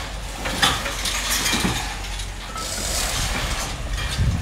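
Wind buffeting the microphone, a gusty low rumble, with a couple of short clicks about half a second and a second and a half in.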